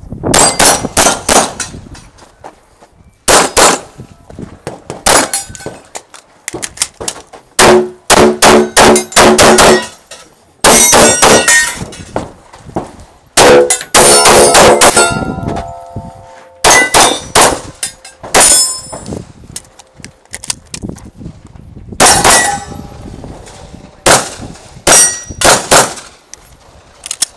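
Pistol fired in quick strings of shots, with steel targets clanging and ringing when hit. The ringing hangs on after some strings, most clearly around a third of the way in and again about halfway through.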